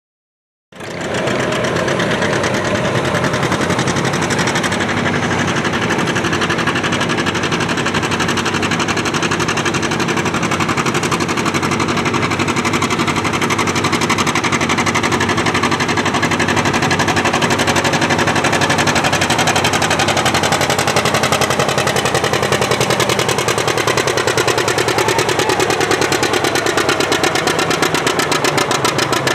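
Antique farm tractor engine running hard under a pulling load, coming in suddenly about a second in. Over the last several seconds its pitch sinks steadily as the engine lugs down, with a slower, more distinct beat toward the end.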